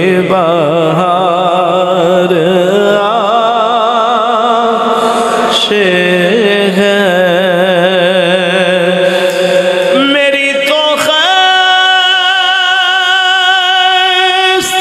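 A man singing a naat into a microphone, a long wavering melismatic line that settles about ten seconds in onto one steady, held high note.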